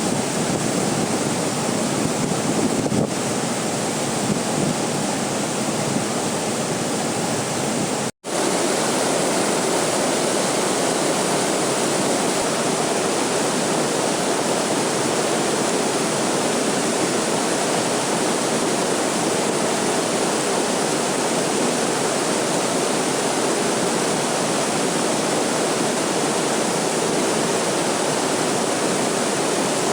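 Waterfall rushing in a steady, even roar, with a momentary break in the sound about eight seconds in.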